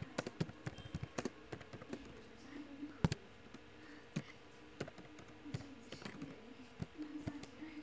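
Computer keyboard typing: short, irregular keystroke clicks, a few a second, as a line of code is entered.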